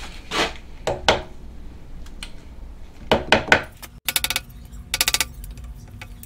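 Small mallet tapping a cast aluminium engine cylinder down in a milling-machine vise to seat it flat before the opposite face is milled. A few separate knocks, then short runs of fast rattling clicks about a second apart.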